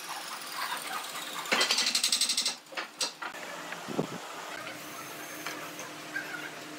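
Pine boards being handled and glued on a wooden workbench. About a second and a half in there is a loud, rapid rattling scrape lasting about a second, then a few clicks and a single knock as a board is set down.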